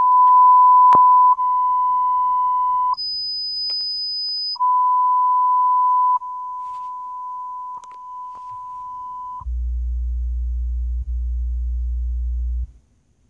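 Speakers of a 2011 Ford Explorer's Sony MyFordTouch audio system playing the diagnostic speaker walk-around test: a steady beep-like test tone passed from one speaker to the next, its loudness shifting at each change. A higher tone sounds briefly about three seconds in, and near the end a low bass tone plays from the subwoofer for about three seconds before stopping.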